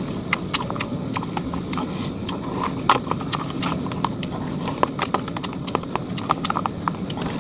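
Close-up eating sounds: irregular wet clicks and lip smacks of someone chewing noodles and cilok, over a steady low background hum.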